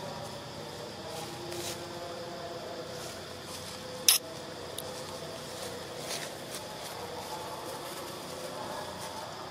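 Steady drone of insects in the forest, with a single sharp click about four seconds in.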